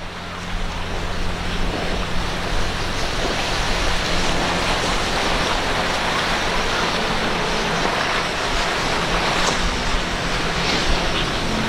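Sea Vee-Z center-console boat running at speed on quad Mercury 400 outboards: a steady low engine drone under the rushing hiss of the hull cutting through waves and throwing spray. The sound fades in over the first second.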